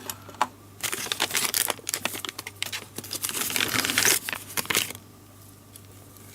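Sealed packaging crinkling and tearing as it is opened by hand: a dense run of crackles that stops about five seconds in.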